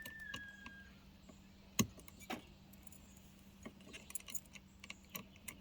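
Small keys jangling and clicking against the anti-theft lock of a Tesla-to-J1772 charging adapter as a key is fitted into it, with a sharp click about two seconds in. A short high steady tone sounds at the start.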